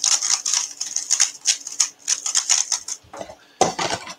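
A plastic speed cube being twisted quickly, a dense run of small clicks as its layers are turned to scramble it for the next solve. Near the end comes a single louder dull knock as something is set down.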